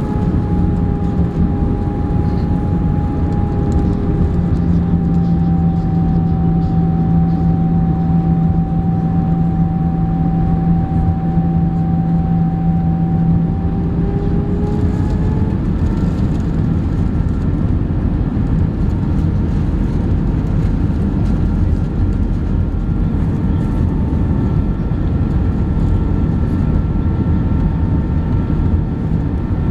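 Airbus A320 cabin noise on approach: a steady roar of jet engines and airflow with a high engine whine. The whine sags slightly in pitch, then about halfway through shifts to new, higher tones as the engine power changes.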